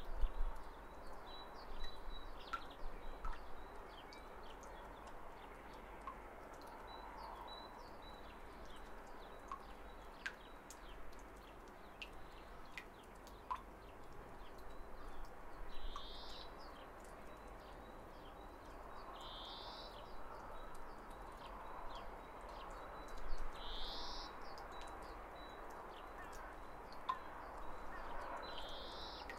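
Spring outdoor ambience: scattered bird chirps over a steady background hiss, with one short rising bird call repeating about every four seconds in the second half.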